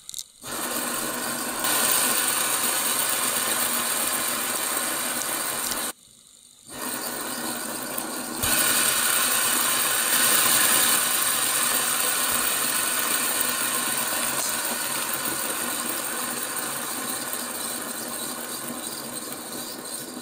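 Homemade ball-bearing motor spinning on current passed through its two ball bearings and shaft, with the washed, ungreased bearings giving a loud, steady rattling whir. It stops briefly about six seconds in, then runs again, louder from about eight seconds in.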